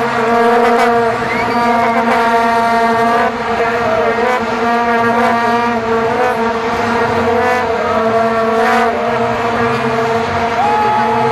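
Vuvuzelas blown by a stadium crowd: a loud, steady massed drone on one low note, with single horns wavering in and out over it. A higher-pitched horn is held briefly near the end.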